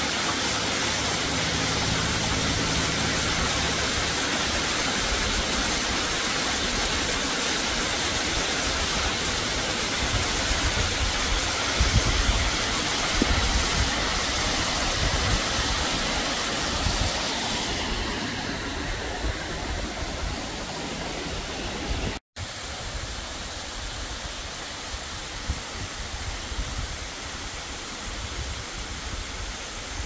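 Seeweidbach waterfall's thin stream of water falling down a rock face, a steady rushing hiss; the falls are running at low flow. About 18 seconds in the sound turns duller, and after a brief break it goes on a little quieter.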